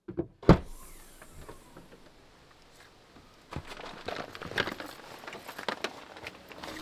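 A sharp clunk about half a second in, then the rustling and small clicks of a backpack and gear being handled and packed.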